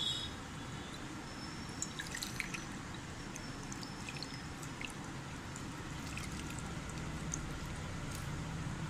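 Herbal syrup dripping and trickling through a cloth-lined strainer: faint, scattered drips over a steady low hum.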